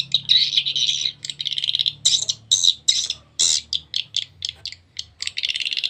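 Recorded swiftlet calls, a swiftlet-house lure sound, played through a pair of horn tweeters: fast trains of short, buzzy chirps, thin and high with no low end.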